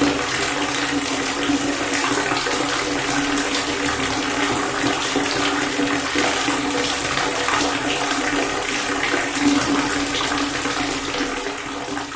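Water pouring in a steady, continuous stream with constant splashing.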